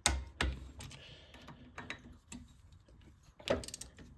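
Ratcheting torque wrench clicking in short strokes as the bolts of a garden tractor's rear taper hub are drawn up toward 110 inch-pounds. Two loud clicks at the start, a quicker run of lighter clicks in the middle, and more clicks near the end.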